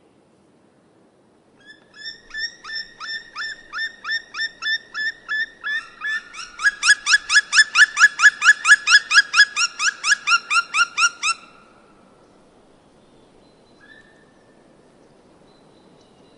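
A long series of short, falling animal call notes, about three a second at first, then faster at about four a second and louder, stopping abruptly after about ten seconds.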